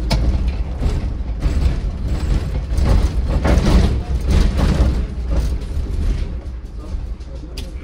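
City bus on the move, heard from on board: a steady low engine and road rumble with frequent rattles and clunks from the bus's body and fittings.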